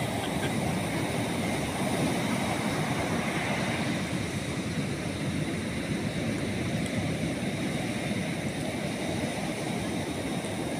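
Ocean surf: waves breaking and washing up a sandy beach, a steady rushing noise.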